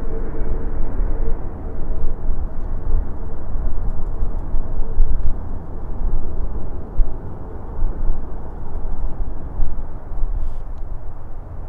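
Twin-engine jet airliner's engines rumbling low and heavy as it lands and touches down, the level surging unevenly.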